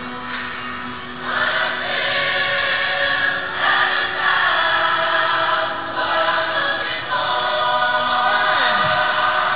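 Music with singing voices, sustained choir-like notes that change pitch every second or so and grow fuller after about a second.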